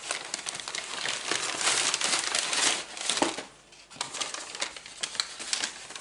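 Brown kraft paper bag crinkling and rustling as a hand rummages inside it. After a short lull about halfway through, lighter crackling of a plastic blister pack being handled.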